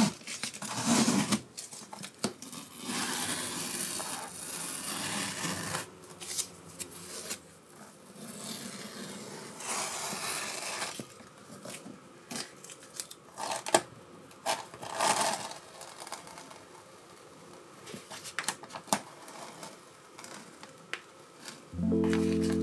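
Paper masking sheets rustling, crinkling and rubbing against a canvas as they are laid over the painting and smoothed down by hand, with light taps. A steady low hum starts near the end.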